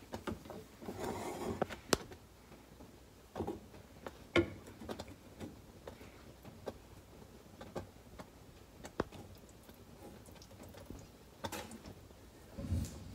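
Sparse light clicks and knocks of kitchen utensils: a glass measuring cup and a spatula tapping against a saucepan on the stove, a few seconds apart.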